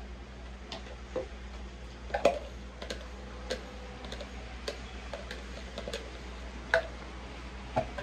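Light, irregular clicks and knocks of a plastic measuring jug and a glass mixing bowl being handled while batter is mixed, over a steady low hum.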